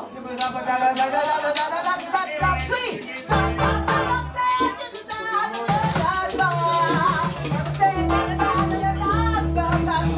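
Live band music: a voice singing a wavering melody over bass notes and a drum kit keeping a steady beat, with the bass dropping in and out during the first half.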